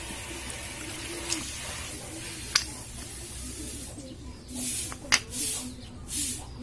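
Motorcycle brake shoe being cleaned: a few sharp clicks, then short hissing strokes, three in the last two seconds.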